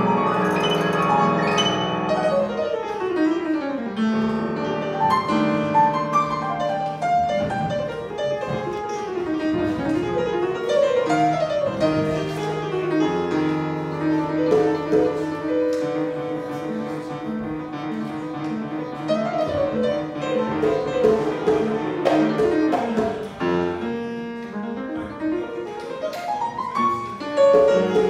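Solo grand piano playing a warm-up: fast runs sweeping down and up the keyboard over held bass notes, with a stretch of evenly repeated low notes in the middle and a quick run up near the end.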